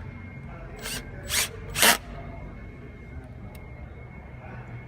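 Power drill driving a screw into a plastic panel in three short trigger bursts about half a second apart, each louder than the last.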